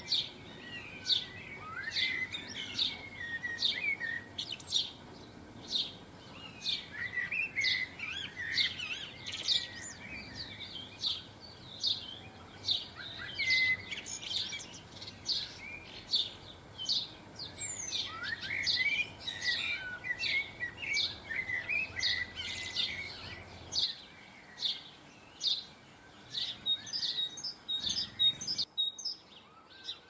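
Small garden songbirds chirping and twittering, many short sharp calls in quick succession mixed with warbling phrases. The sound cuts out briefly near the end.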